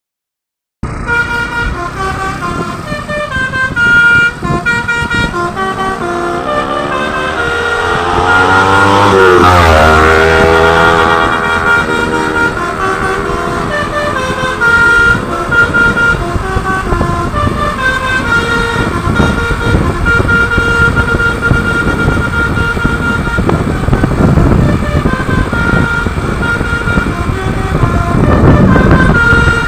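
Basuri (telolet) multi-tone air horn on a tronton truck playing a tune in stepped notes, with a rising swoop of tones about eight to ten seconds in. The truck's engine runs underneath, more prominent in the second half.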